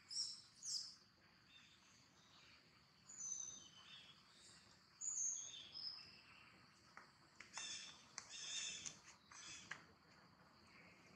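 Faint wild birdsong: short high chirps and whistles scattered through, with a denser run of chirping about three quarters of the way in, over a steady high insect hum.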